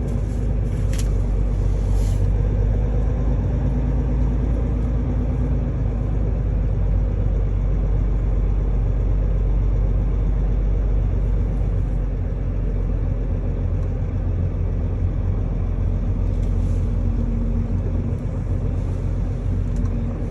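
Diesel engine of a semi truck running steadily as the rig moves slowly, a low drone throughout. A couple of light clicks come about one and two seconds in.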